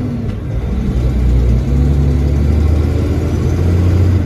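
Semi truck's diesel engine running steadily in the cab as it drives. The low engine note breaks briefly about a second and a half in, then carries on.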